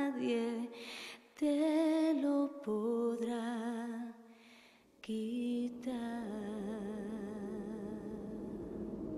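A woman singing a wordless melody, holding notes with vibrato and stepping between pitches, with short breaks between phrases. From about six seconds in the voice gives way to a steady, even wash of sound.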